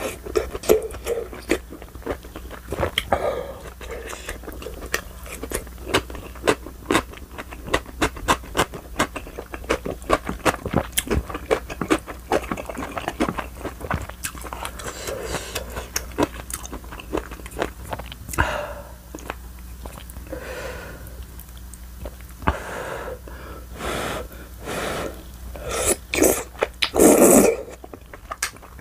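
Close-miked mukbang eating: chewing of tteokbokki rice cakes in creamy mala rosé sauce, with many wet mouth clicks and occasional scrapes of a wooden spoon and chopsticks in the bowl. A few louder, longer mouth sounds come near the end.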